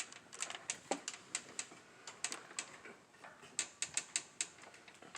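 Garage attic door's hinge and spring mechanism working as the door is pushed closed, giving a run of light, irregular clicks and ticks, several a second.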